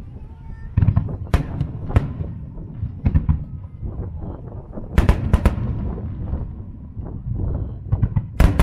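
Aerial firework shells bursting overhead: a run of sharp bangs over a constant low booming rumble. A few come about a second in, a tight cluster around the middle, and a loud pair near the end.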